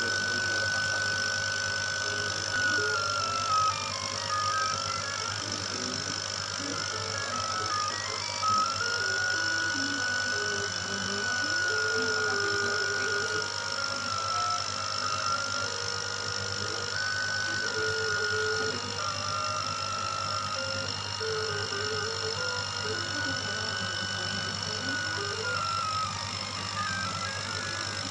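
CO2 CNC laser engraver at work: its stepper motors whine, the pitch gliding up and down and jumping as the head changes speed and direction, over a steady low hum.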